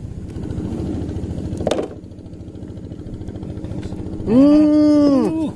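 A motor hums steadily in the background, with a sharp click just under two seconds in. Near the end comes a loud, drawn-out vocal cry that rises, holds and falls: an exclamation at the first fish strike on the line.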